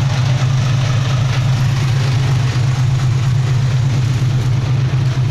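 Dump truck's diesel engine idling: a steady, unbroken low drone.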